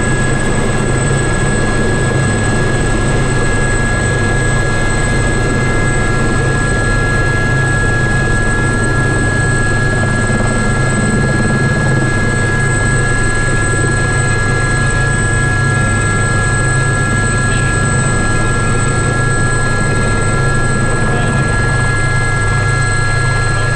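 Gazelle helicopter's turboshaft engine and rotors running steadily, a constant low drone with several thin, high, steady whines over it.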